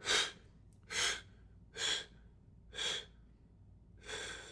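A man blowing his breath out forcefully in four short, sharp puffs about a second apart, then a longer breath out starting near the end, as part of a pranayama breathing exercise.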